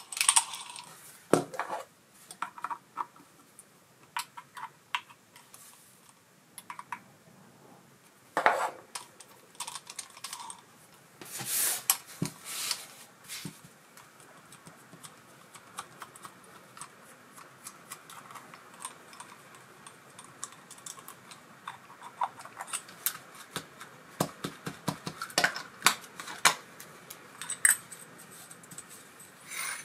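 Small metal reel parts and hand tools clicking, clinking and scraping as an ABU Ambassadeur 4600 CA baitcasting reel is worked on, in irregular taps with a few short rubs.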